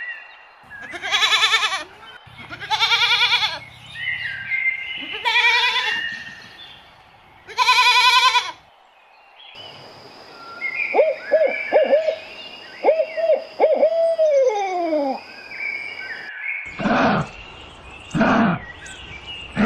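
Animal calls from several different recordings played one after another. First come four or five separate wavering bleat-like calls. Then a run of short hooting notes sounds over a steady high hum. A few louder calls follow near the end.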